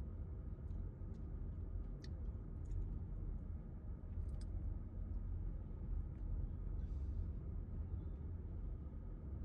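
Faint, steady, low background rumble, with a few small clicks about two and four seconds in.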